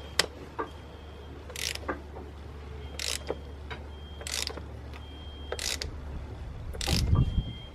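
3/8-inch drive ratchet clicking in short bursts, one burst with each back stroke, as it spins off the BMW N52's loosened oil filter housing cap. A dull knock sounds near the end.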